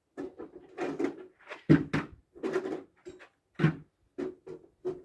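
A run of short, irregular clicks and clacks, two or three a second: 300 Blackout cartridges being pressed into a 20-round AR magazine.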